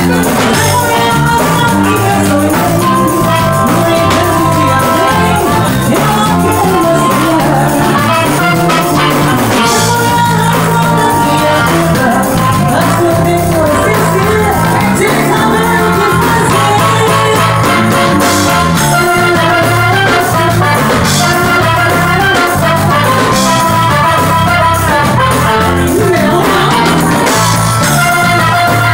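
A live band playing loud dance music, with electric guitar, drum kit and a singing voice.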